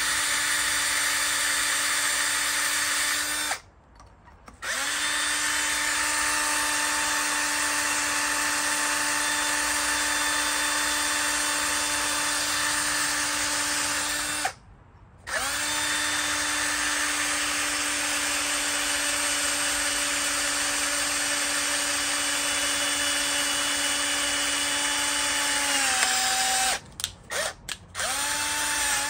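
Electric drill running steadily while boring into a small metal part. The motor stops twice for about a second and starts again. Near the end its pitch sags slightly under load, then it is pulsed on and off a few times in quick succession before running on.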